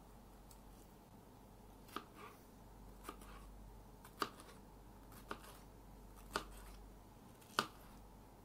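Kitchen knife slicing through peeled pineapple and striking a plastic cutting board: about six sharp knocks, roughly one a second, the last the loudest.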